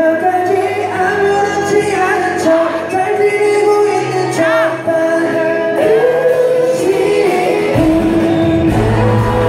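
A pop-rock band playing live: electric guitars, bass, drums and keyboard under a sung lead vocal, heard from the audience in a concert hall.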